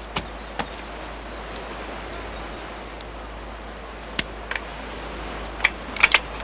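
Sharp dry clicks of a scoped rifle that fails to fire: a defective firing pin leaves only the click of the mechanism. A couple of knocks come near the start, a pair about four seconds in and a quick cluster near the end, over a steady hiss.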